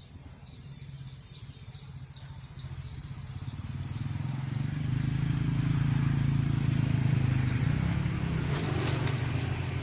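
A motor vehicle's engine drone swelling over several seconds, loudest in the middle and easing off near the end, as it passes by.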